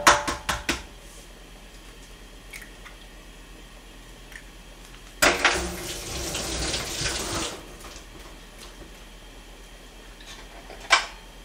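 A few sharp kitchen knocks, then water running from a kitchen tap for about two seconds before it is shut off abruptly, and a single sharp click near the end.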